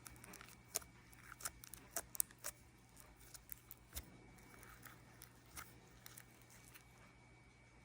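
Faint scattered small clicks and ticks, close together at first and thinning out over the last few seconds, over a quiet steady hum.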